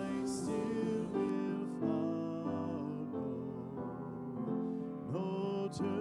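Slow, gentle hymn played on church organ and piano, with long held notes changing in steps.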